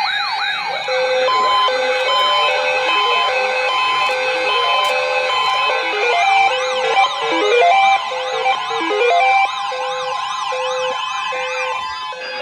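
Electronic alert siren tones layered over one another: quick beeps alternating between a high and a low pitch, joined about six seconds in by fast up-and-down sweeping yelps, settling into a steadier tone near the end.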